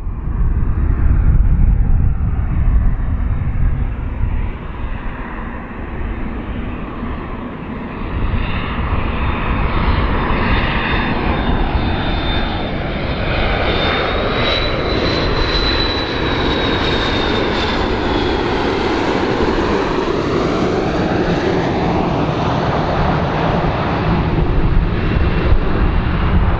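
A large aeroplane's engines running loud as the aircraft passes by: a deep steady rumble, with a thin high whine that rises in pitch and then falls away through the middle of the pass.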